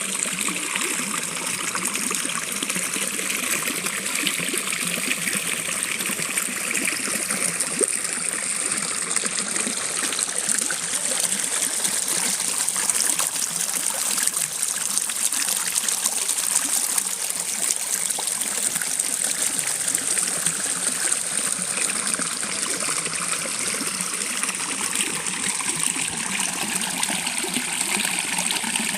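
A river or stream flowing and trickling steadily over rocks.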